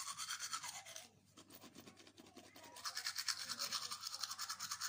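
Teeth being brushed by hand with an electric toothbrush whose battery is dead, so there is no motor, only the bristles scrubbing quickly back and forth. About a second in the strokes ease off, then pick up again more strongly.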